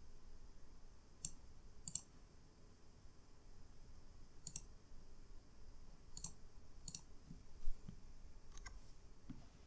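Computer mouse clicking, about six short, sharp clicks spaced irregularly.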